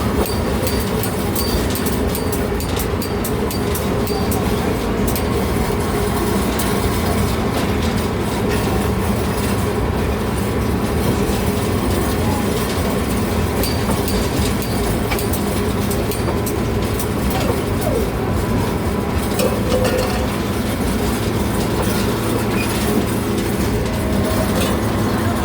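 Train cars rolling along the track, heard from on board: a steady low running noise with light clicks from the wheels.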